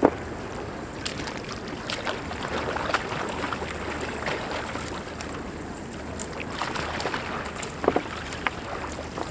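Water splashing and sloshing as swimmers move through icy lake water among broken ice. Scattered sharp clicks run through it, with a louder splash right at the start and another about eight seconds in.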